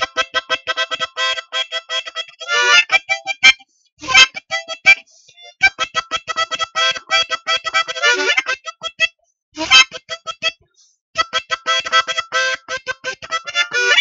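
A harmonica ringtone melody: quick runs of short repeated notes in bright phrases, broken by brief pauses about three and a half, five and ten seconds in.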